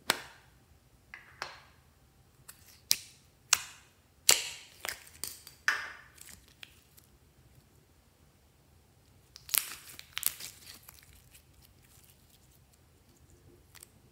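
Plastic seashell-shaped slime container snapping open, then clear purple slime crackling and popping as it is stretched and squeezed by hand. Sharp clicks and pops come thickly in the first six seconds and again in a cluster about ten seconds in.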